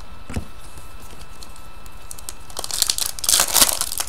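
Foil wrapper of a 2012-13 Fleer Retro hockey card pack crinkling as it is handled and opened, a dense crackling that starts a little over halfway through, after one light tap.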